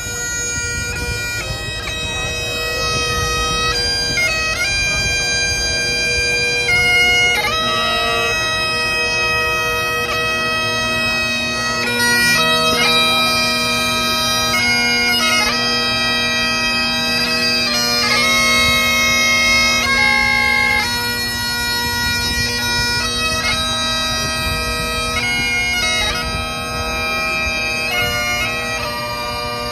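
Great Highland bagpipes playing a tune, the chanter's melody moving over steady drones.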